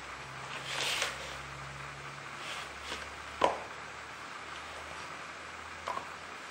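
Toy blocks being handled and set down by a toddler: a soft rustle about a second in, one sharp knock about halfway through, and two light clicks near the end.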